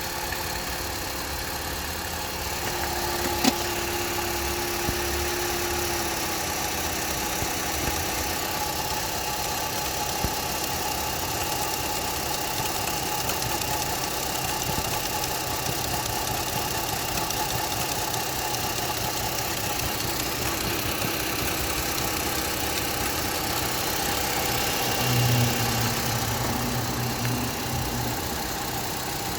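Opel Astra H 1.4 four-cylinder petrol engine running steadily at idle, with the knocking from underneath the engine that is the owner's complaint. There is one sharp click about three and a half seconds in, and a low hum a little before the end.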